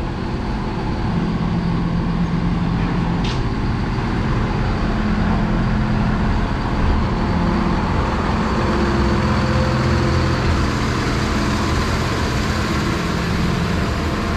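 Diesel engine of a refuse-compactor truck idling with a steady low hum.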